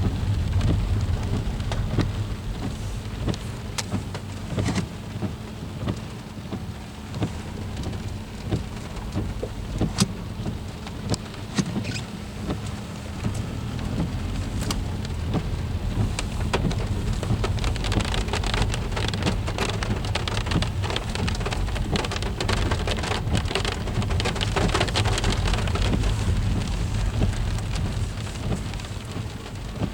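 Freezing rain pattering and ticking on surfaces, with many scattered sharp clicks and a steady low rumble underneath. The hiss grows heavier about two-thirds of the way through, then eases near the end.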